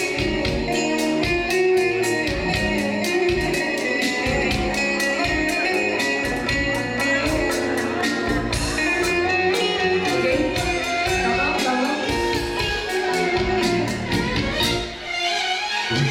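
Upbeat music with a guitar lead over a steady drum beat and bass, dipping briefly near the end.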